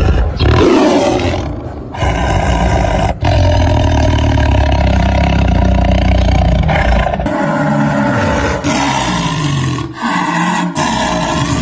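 Big cats roaring and growling loudly in a run of separate clips, each starting and stopping abruptly.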